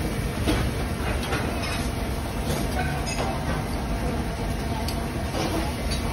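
Steady low rumble of a busy buffet restaurant, with scattered light clicks and clatter.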